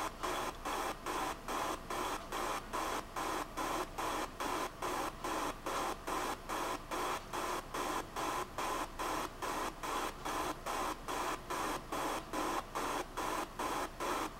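A hissing noise that pulses evenly, about three times a second, with no change in pace.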